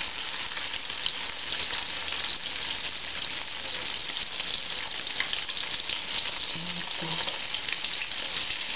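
Batter-coated capelin fillets frying in hot oil in a frying pan: a steady, dense sizzle of fine crackling pops.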